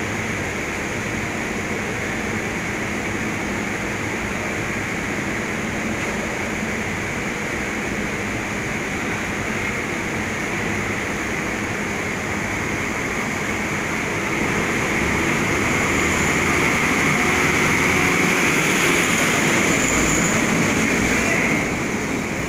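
Steady drone and rushing noise of a ferry's machinery and ventilation on the vehicle deck. It grows louder for several seconds in the second half, then drops back shortly before the end.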